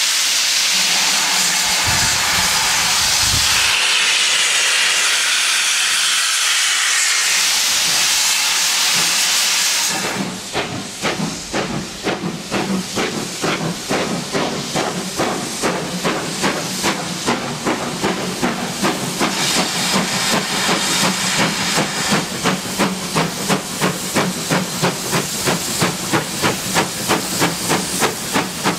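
Two-cylinder GWR Manor class 4-6-0 steam locomotive 7820 Dinmore Manor: first a loud, steady hiss of escaping steam as it stands, then the rhythmic chuff of its exhaust beats at an even pace as it works a train.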